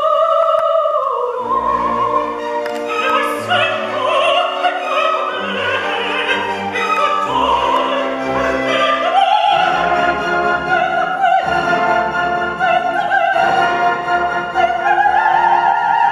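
A woman's operatic voice singing with a wide vibrato over a live orchestra, with strings to the fore.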